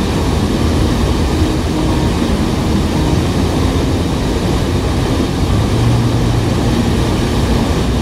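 Steady, loud rush of a broad waterfall, Sogi Falls, running high with rainwater and churning into the river below.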